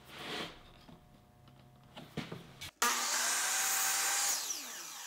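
Compound miter saw switched on about three seconds in with a sudden loud start and a rising whine as it cuts a 45-degree miter in a strip of wooden molding. A second or so later the motor is released and winds down, its pitch falling.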